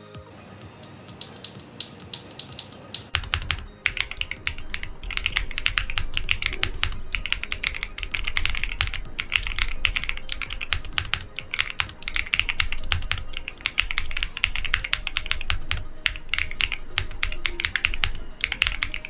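Mechanical keyboard fitted with TTC Flame Pink linear switches being typed on: a few scattered keystrokes at first, then fast continuous typing from about three seconds in.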